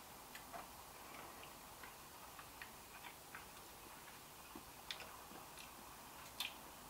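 Near silence with a few faint, scattered clicks of a person eating ice cream, the two strongest about five and six and a half seconds in.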